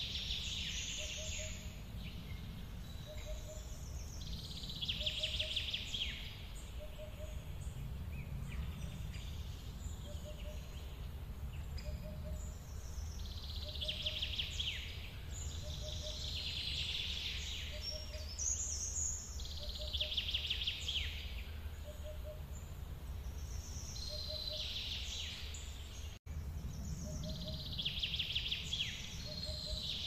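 Forest dawn ambience: songbirds singing in short phrases that come every few seconds, over a steady low rumble, with a faint soft note repeating about once a second. The track cuts out for an instant late on.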